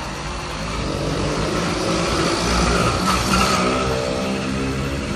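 A motor vehicle passing close by on the road. Its tyre and engine noise swells to a peak about three seconds in, leaving a steady engine tone afterwards.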